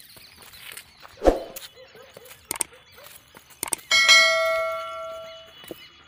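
Subscribe-button animation sound effect: a thump about a second in, a few sharp clicks, then a bright bell ding about four seconds in that rings out and fades over about a second and a half.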